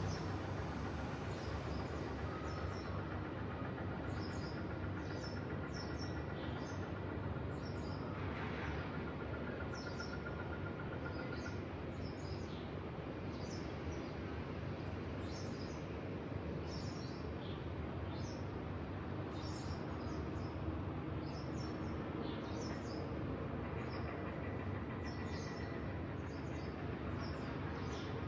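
Small birds chirping in short, repeated calls over a steady low background rumble of outdoor ambience.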